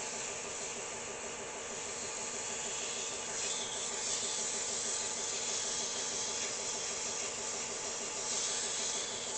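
Lathe running steadily while 1000-grit sandpaper is held against a spinning pitted, rusty metal hand-wheel handle, giving a constant hum under a sanding hiss. The hiss swells about three and a half seconds in and again near the end as the paper is pressed harder.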